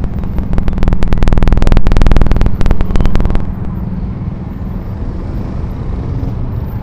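Motorbike traffic running steadily at low speed, with a loud, very rapid train of sharp knocks for about three seconds that stops suddenly.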